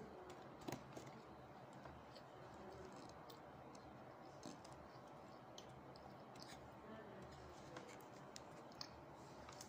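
Faint eating sounds from close up: chewing and mouth clicks, and fingers working rice and fried pastry on a plate. Scattered small clicks run throughout, a slightly sharper one about a second in and another near the end.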